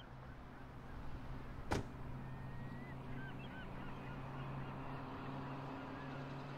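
Gulls calling faintly with a series of short, curved cries over a steady low hum, fading in at the start. One sharp click cuts through a little under two seconds in.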